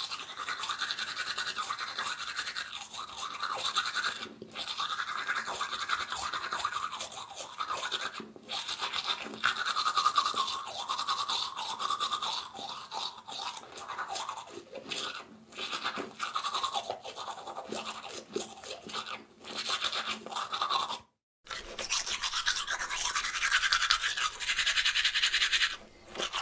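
Toothbrush scrubbing teeth in quick back-and-forth strokes, with a few short pauses and a brief full stop about 21 seconds in.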